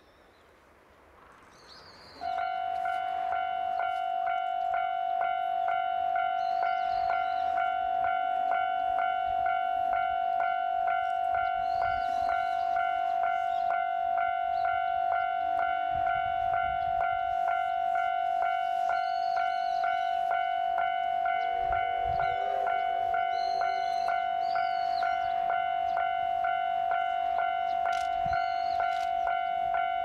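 Japanese level-crossing warning bell starts about two seconds in, then rings a steady, evenly repeating electronic ding a few times a second as the steam train approaches.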